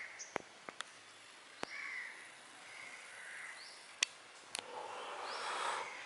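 Crows cawing now and then, with a few sharp clicks in between.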